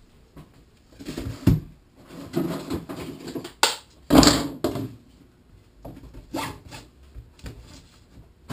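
White plastic pipe pieces knocking and rattling as they are picked up and set down on a wooden workbench, with fabric rustling and scraping as a pipe goes into the hammock fabric. There is a handful of separate knocks and scrapes, and the loudest clatter comes about four seconds in.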